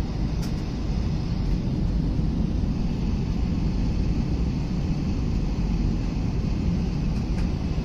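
Steady engine and airflow noise of an Airbus A321 airliner in flight, heard from inside the passenger cabin.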